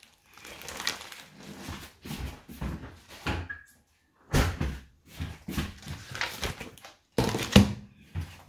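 Knocks, rustling and clatter of plastic meat trays and paper packaging being handled and dropped into a kitchen bin, with the loudest knock near the end.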